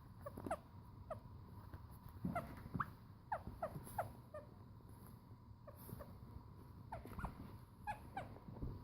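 Six-week-old chocolate Labrador puppy whimpering: many short, high squeaks, most falling in pitch, coming in irregular clusters.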